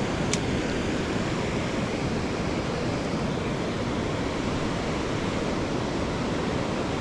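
Steady rush of river water pouring over the rocky shoals below a spillway, with one sharp click about a third of a second in.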